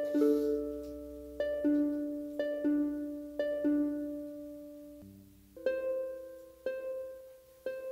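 Slow instrumental interlude of plucked-string notes, each ringing and fading: a two-note figure repeats about once a second, then after about five seconds it thins to single notes over a lower bass note.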